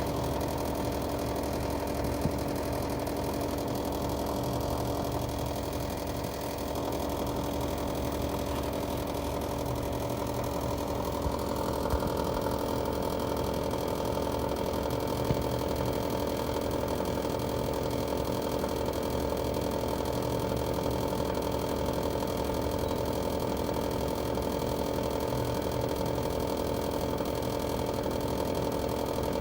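Panasonic LX-series heat-pump air conditioner's outdoor unit running: a steady mechanical hum with several held tones and a few faint ticks. This is the abnormal noise the unit has made since it was new.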